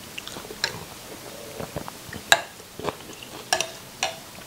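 Close-miked eating sounds: sipping noodle broth from a spoon, then chewing, with scattered wet mouth clicks and smacks and one sharp click a little over two seconds in.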